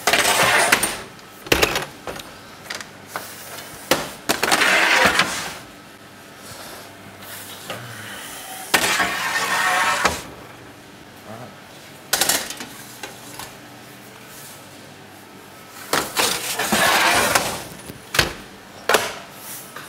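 Metal baking trays scraping across the floor of a deck oven as they are loaded, in four scraping bursts about a second long, with sharp metallic clanks and knocks between them.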